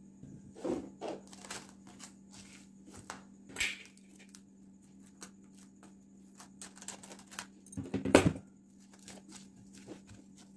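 Scattered clicks, light rustles and knocks from handling a glass bowl of raw chicken, with one louder knock about eight seconds in. A steady low hum runs underneath.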